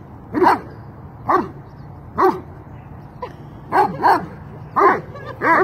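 Doberman barking during play: about seven short barks roughly a second apart, with a quick double bark about four seconds in.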